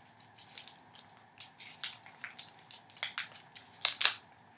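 Hi-Chew candy wrapper crinkling as it is opened by hand: a run of irregular small crackles, with two louder ones close together near the end.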